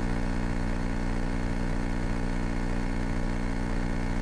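The 1970 Cessna 172K's four-cylinder Lycoming piston engine runs steadily at low power while the aircraft sits on the ground.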